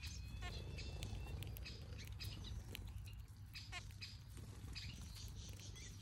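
Aviary finches, mostly zebra finches, giving short chirping calls scattered through, over a steady low rumble.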